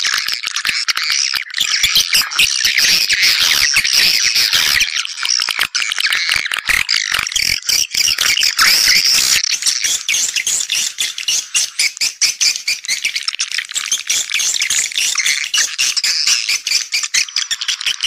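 Swiftlet lure call (suara panggil walet): a dense, unbroken chorus of rapid high twittering chirps and clicks, the kind of recording played to draw swiftlets into a nesting house.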